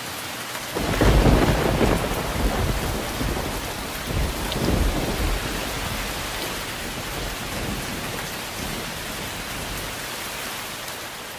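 Thunderstorm: steady rain with thunder rolling in, one loud rumble about a second in and another about four seconds in, fading away afterwards.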